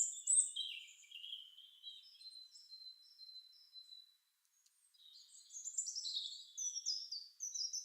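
Small birds chirping and twittering in quick high notes and short falling trills, faint in the middle and busier again near the end.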